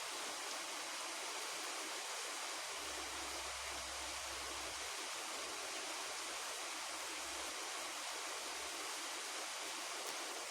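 Steady rain falling, an even unbroken hiss, with a faint low rumble under it through the middle.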